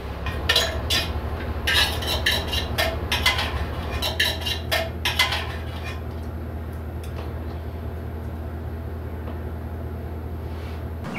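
Metal spoon clinking and scraping against an aluminium pot, a quick run of sharp clinks for about five seconds, over a steady low hum that carries on alone afterwards.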